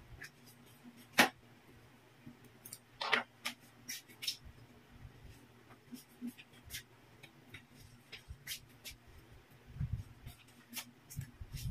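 Plastic bottles of liquid being set down one after another on a table: scattered sharp knocks and clicks at irregular intervals, the loudest about a second in, with a few duller low thuds near the end.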